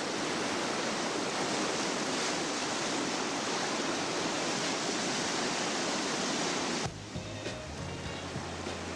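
Steady roar of big whitewater rapids on a river running high. About seven seconds in, the roar cuts off suddenly and a quieter passage follows, with low bass notes of background music.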